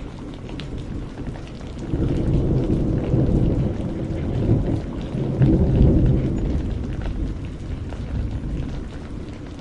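Steady rain with a long, low rumble of thunder that swells about two seconds in, peaks midway and dies away near the end.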